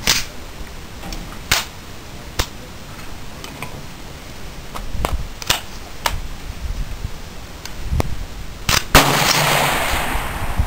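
Sharp cracks and clacks spaced irregularly, some of them gunshots, mixed with the metal clicks of an AR-15 with a .22 conversion kit being handled and a magazine being seated. About nine seconds in comes a longer rustling noise.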